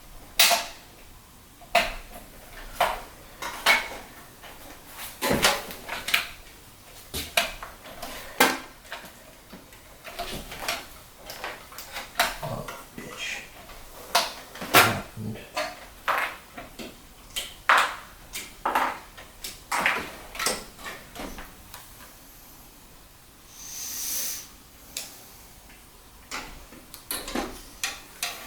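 Irregular clicks, clinks and knocks of computer hardware being handled and fitted into a PC case, with a short rushing noise near the end.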